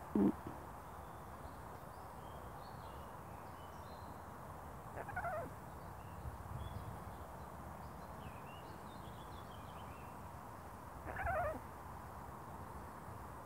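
Blue-fronted Amazon parrot calling: a short low call right at the start, then two falling calls about six seconds apart, each about half a second long.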